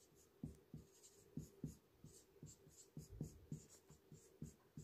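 Faint scratches and taps of a felt-tip marker writing on a whiteboard, a string of short separate strokes as letters are formed.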